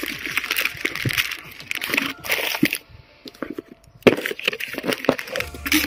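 A hand rummaging among plastic-wrapped energy bars and cardboard boxes in a shipping carton: crinkling wrappers and cardboard rustling and scraping. It comes in two spells, with a pause about three seconds in.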